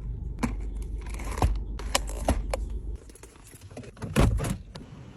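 Food packages and containers being handled and set down: a run of separate clicks and taps, with a louder clatter about four seconds in.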